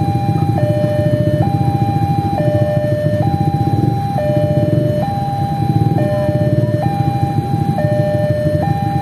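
Level-crossing warning alarm sounding, switching between a higher and a lower tone about once a second, with vehicle engines running underneath.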